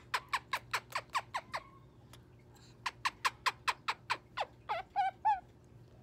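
Moluccan cockatoo chattering in two quick runs of short, falling chirps, about five a second. It ends with a few longer, wavering, voice-like calls.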